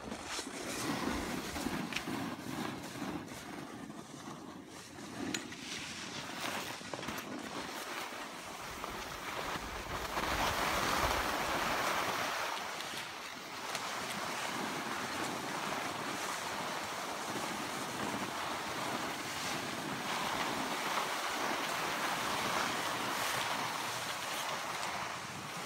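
Steady hiss of boards sliding over groomed snow, with wind rushing over the microphone, loudest about ten to twelve seconds in. A few light knocks sound in the first several seconds.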